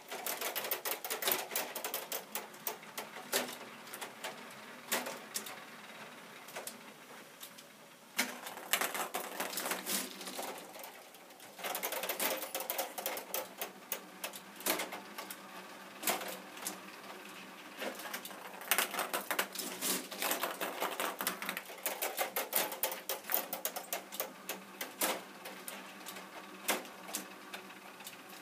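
Plastic K'Nex mechanism of a ping-pong-ball fruit machine in operation, clicking and clattering in repeated bursts of a second or two with quieter gaps between.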